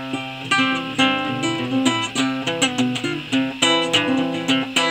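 Classical guitar with very old nylon strings, played solo in a steady run of plucked melody notes over repeated bass notes: the instrumental introduction of a fingerpicked folk tune.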